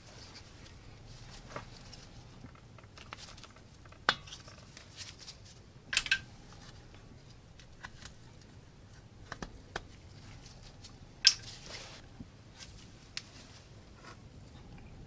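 Scattered metal clicks, clinks and knocks of hand tools and parts being handled at a car's front brake caliper. The sharpest knocks come about four, six and eleven seconds in, with the one near eleven seconds the loudest.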